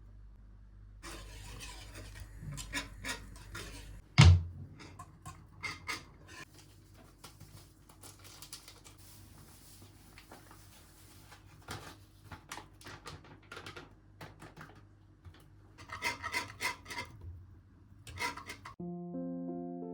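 Kitchen handling sounds: rubbing and scraping with scattered light knocks, one sharp knock about four seconds in, and a run of clinks near the end. Background music starts just before the end.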